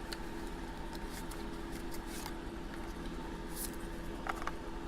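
Scattered light clicks and rustles of a small knife and its box being handled as it is taken out, over a steady low hum.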